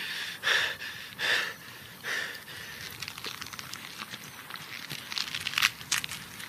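Rustling and crinkling of dry material worked by hand, in three swishes over the first two seconds or so, then a fainter crackle with a few sharp clicks around five to six seconds in.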